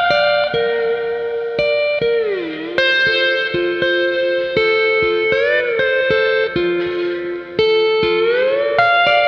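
Hawaiian-style slide guitar music: plucked notes held and sliding smoothly up and down between pitches.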